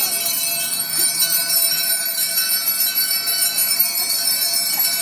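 Many bells ringing together without pause: a crowd ringing bicycle bells and handbells, a dense, continuous, high jangle.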